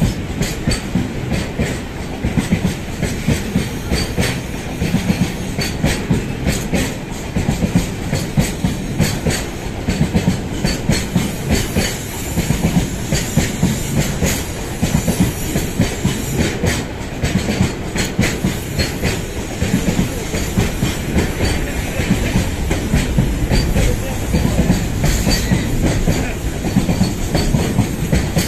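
Freight train of loaded container flatcars passing close by: a continuous rumble with the wheels clacking over the rail joints again and again.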